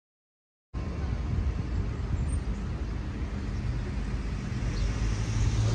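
Low, steady rumble of a car and road noise, cutting in suddenly about a second in.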